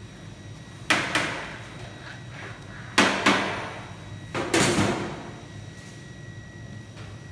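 Three pairs of sharp knocks or bangs in a workshop, each ringing briefly, over a faint steady hum and a thin steady whine.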